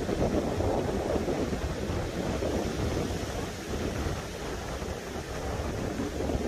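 Wind buffeting the microphone in gusts, a rumbling noise, over the wash of small waves breaking on a beach.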